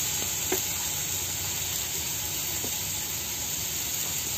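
Melted butter sizzling steadily in an open frying pan around a yogurt-marinated chicken leg piece, with a couple of faint pops.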